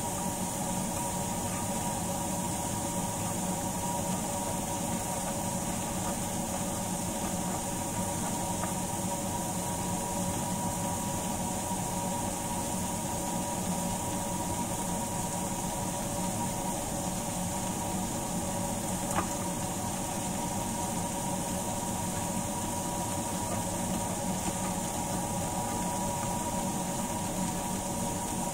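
Steady kitchen hum with a constant whine from a running motor, over an even hiss from the pan of dried fish (tuyo) cooking on the electric stove; a single faint click about two-thirds of the way through.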